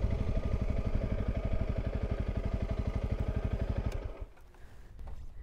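Honda CRF300 Rally's single-cylinder four-stroke engine running at low revs as the motorcycle rolls to a stop. It is switched off about four seconds in, and the engine pulses cut out suddenly.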